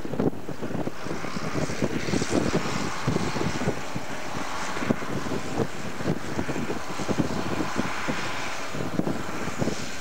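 Tractor's diesel engine working steadily under heavy load while pulling an eight-furrow semi-mounted Dowdeswell plough, heard from a distance. Wind gusts buffet the microphone throughout.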